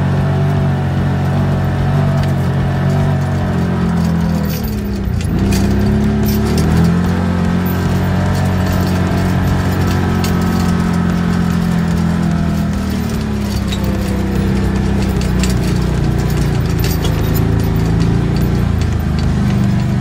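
ATV engine running steadily while towing a log on a wheeled log arch over a dirt road, its pitch dropping and climbing again about five seconds in and easing again a little past halfway. Light clicks and clatter come through over the engine.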